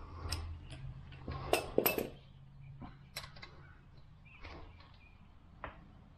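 Handling noises from work on a motorcycle fork leg: scattered clicks and knocks of parts, the loudest pair about two seconds in, over a low steady hum.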